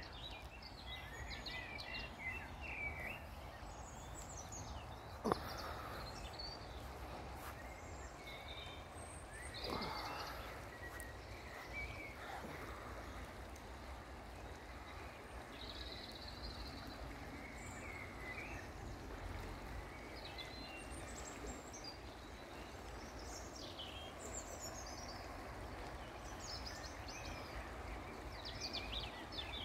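Small songbirds singing and calling, many short chirps and trills scattered throughout, over a steady low background rumble. A single sharp click about five seconds in.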